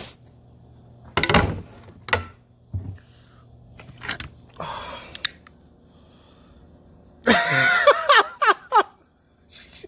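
Scattered knocks and clicks of hands working with kitchen utensils and food, and a man making wordless vocal sounds, like a groan or laugh, for about a second and a half, starting about seven seconds in.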